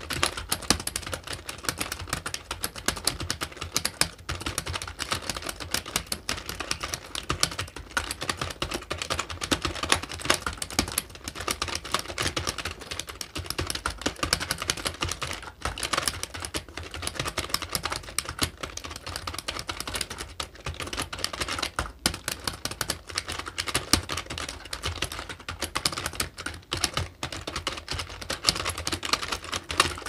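Computer keyboard being typed on fast and continuously, a dense run of key clicks with a few brief pauses.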